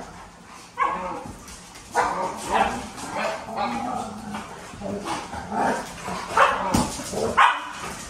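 Dogs play-fighting, barking in short irregular bursts, with the loudest barks near the end.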